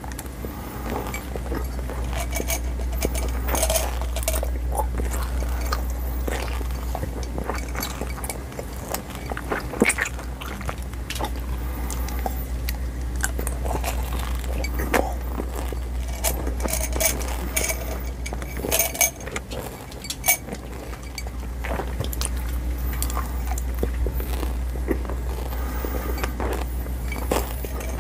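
Close-miked chewing of a mouthful of hard-coated Xylitol pellet gum: the candy shell crunches and clicks irregularly between the teeth. A steady low hum runs underneath.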